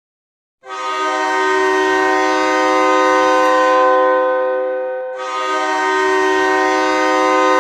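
Hockey goal horn: a loud air horn sounding a chord of several steady tones in two long blasts, the first starting about half a second in and lasting about four and a half seconds, the second following straight on about five seconds in.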